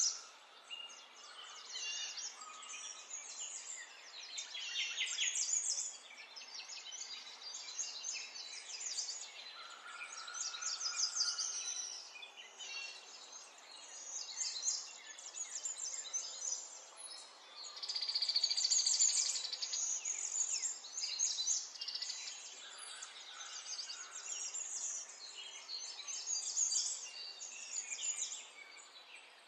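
Birds chirping and singing in a busy, ever-changing chorus over a steady background hiss, swelling and fading every few seconds.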